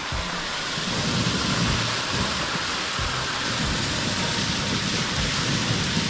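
Water main blow-off valve open for flushing, water gushing out under strong pressure in a steady rushing spray that grows a little louder about a second in, with low thuds underneath.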